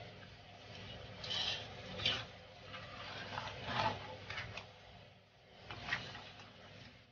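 Spatula scraping and stirring crab and shrimp in sauce around a wok, in irregular strokes about a second apart.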